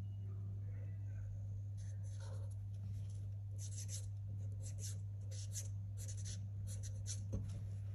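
Marker pen writing on a 15 mm copper pipe: a quick run of short pen strokes from about two seconds in, as the mark and a number are written, over a steady low hum.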